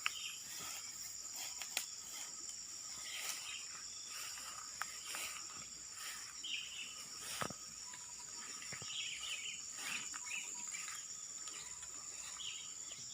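Steady high-pitched drone of insects, with short bird chirps here and there and a few light clicks.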